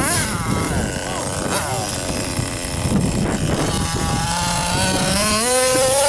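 Hobao Hyper ST RC stadium truck's motor revving up and down as the truck drives over rough ground, its pitch rising steadily near the end as it accelerates.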